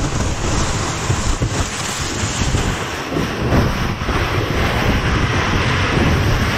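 Plastic whitewater kayak hull sliding down packed snow, a steady rushing noise with wind buffeting the microphone.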